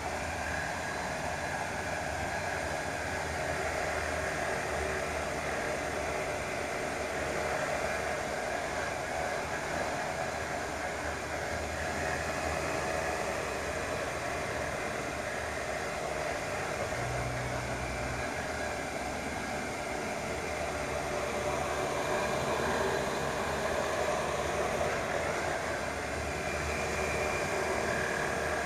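Multirotor drone (the FlyByCopters X8 Renegade) hovering, its motors and propellers giving a steady buzzing whir that shifts slightly in pitch as it holds and adjusts its position.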